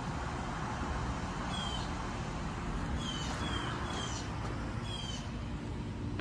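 A bird calls five times, each a short high whistle that slides downward, over a steady outdoor rumble and hiss.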